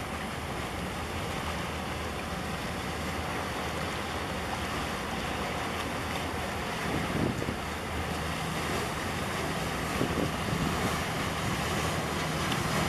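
Wind buffeting the microphone over water lapping and waves washing, with a small harbour boat's engine giving a steady low hum as it motors past close by.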